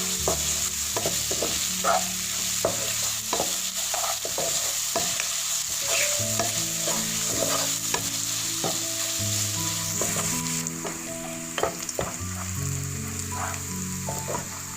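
Onions frying in hot oil with a steady sizzle, stirred with frequent scraping and tapping against the pan, as they cook down to light brown.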